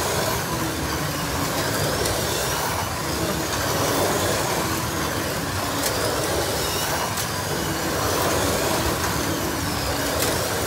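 Several 1/32 scale slot cars racing: their small electric motors whine, rising and falling in pitch as the cars speed up and slow down, over a steady rushing noise, with a few sharp clicks.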